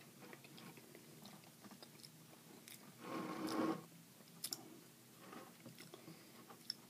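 Wet mouth sounds of sauce being tasted off a spoon: faint lip smacks and tongue clicks, with a louder, longer mouth noise about three seconds in.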